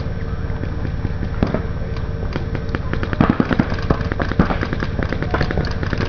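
Paintball markers firing in rapid, irregular strings of sharp pops, several guns at once, with the loudest cluster of shots about three seconds in.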